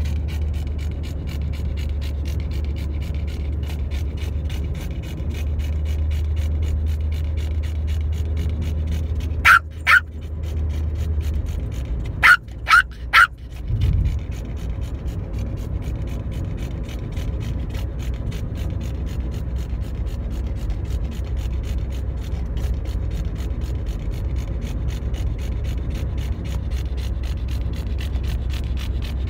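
Steady low rumble of a car driving, heard from inside the cabin. About a third of the way in come five short, sharp sounds, two and then three in quick succession.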